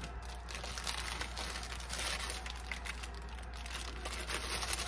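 Thin plastic bag of brownie mix crinkling continuously as it is shaken and squeezed out over a bowl.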